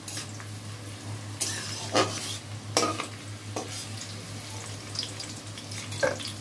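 Cashews, raisins and almonds sizzling steadily in hot oil and ghee in a kadai, fried through with the raisins puffed up. A metal spatula scrapes and clinks against the pan several times as it pushes the nuts aside.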